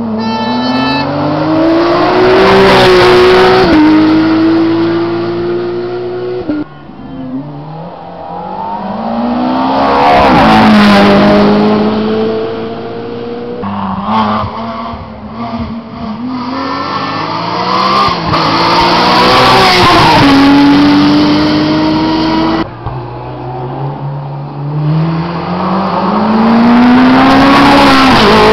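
Hillclimb race cars accelerating hard uphill past the roadside, one after another. Each engine revs up with a rising note, steps down at each gear change and peaks loudly as the car passes close. Four such passes come about eight seconds apart.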